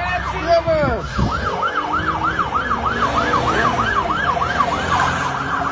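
Siren in a fast yelp: a tone sweeping up and down about four times a second, after a few falling swoops in the first second.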